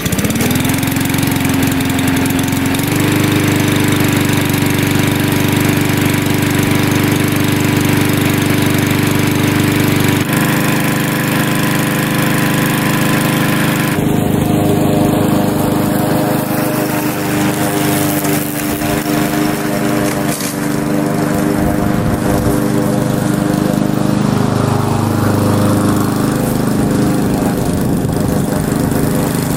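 Walk-behind lawn mower's Chinese-made 123cc single-cylinder engine catching on the pull start with the choke on, revving up and settling into a steady run. Its speed steps up about three seconds in, and later its pitch wavers as it cuts grass.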